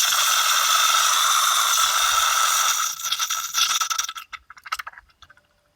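Release valve on a water pipe hissing loudly as air and water rush out, breaking into sputters about four seconds in and then cutting off.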